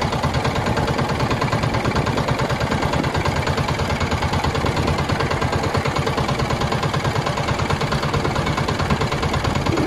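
Motor of an outrigger boat under way, running steadily with a rapid, even pulsing beat.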